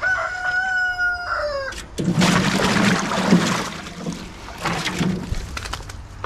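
A rooster crows once, a single drawn-out call that drops away at the end. Then water sloshes and splashes loudly in a metal washtub as a beagle is dunked and worked over in flea dip.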